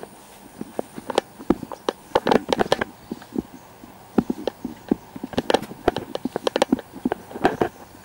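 Footsteps on a grassy trail: a string of irregular short knocks and crunches.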